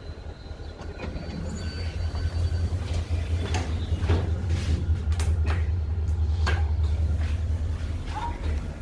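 Otis Gen2 machine-room-less elevator in motion: a low rumble builds about a second in, holds, and eases near the end, with several sharp clicks and knocks through the middle.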